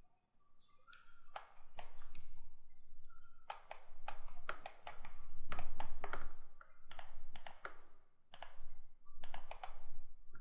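Computer mouse and keyboard clicks while vertices are picked and welded in 3D modelling software. The clicks are irregular and sometimes come in quick clusters, over a faint low hum.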